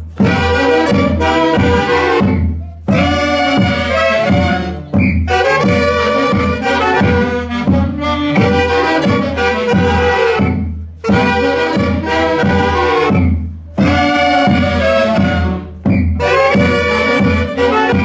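Andean orquesta típica of saxophones, clarinets and harp playing a Santiago tune, with a big drum beating a steady rhythm. Phrases end in short breaks about every two to three seconds.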